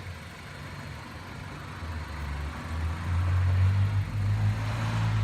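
Car engine idling steadily, growing louder about three seconds in: the running donor car charging another car's flat battery through jumper cables.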